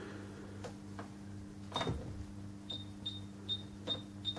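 Keys being pressed on a Sharp XE-A213 cash register's flat membrane keyboard to type in letters, each press giving a short high beep. There are about six beeps, most under half a second apart in the second half, over a steady low hum.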